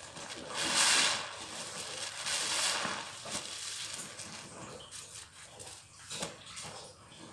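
Soapy sponge squeezed and pressed in a basin of thick suds: wet squelching and sloshing, with two louder rushes of water about a second in and about two and a half seconds in, then lighter squishes and crackling foam.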